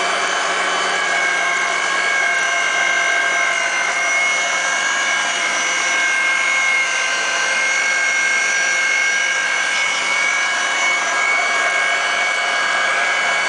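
RIDGID 1233 pipe threading machine running under load, its die head cutting threads on a 3-inch pipe: a steady machine whine with two high, steady tones that hold level throughout.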